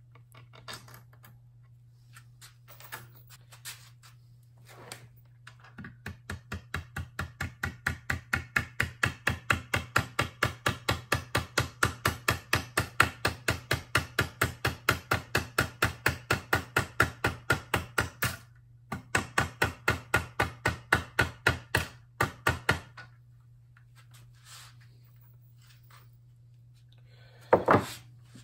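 A hammer taps lightly and quickly on the metal hidden control arm of a plantation shutter, about four taps a second. The taps run for several seconds, break off briefly, resume and stop. One louder knock comes near the end, over a steady low hum.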